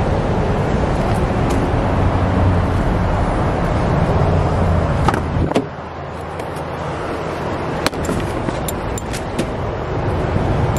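Steady outdoor street and traffic rumble with wind on the microphone, easing a little about halfway through. In the second half, several sharp clicks and knocks from the pickup's open door and seat being handled.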